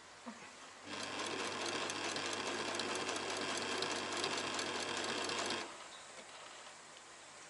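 Old Singer household sewing machine running at a steady speed, stitching through curtain fabric: it starts about a second in and stops about four and a half seconds later.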